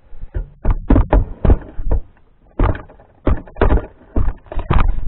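A rapid, irregular run of knocks and thumps on a wooden frame and plywood panel, about a dozen over a few seconds, as the timber structure is handled and leaned on.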